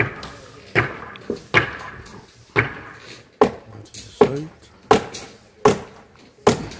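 Hammer blows in a steady rhythm, about nine sharp strikes roughly one every 0.8 seconds, each with a short ring.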